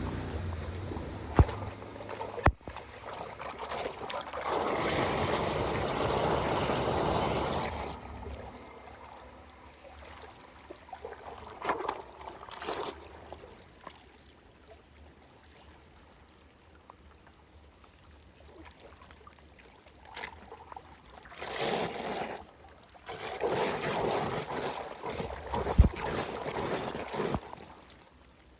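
Water splashing and rushing in bursts, with a few sharp knocks.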